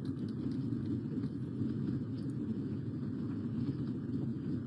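Steady low room rumble, with a few faint taps and clicks of a stylus on a tablet PC's screen as words are written.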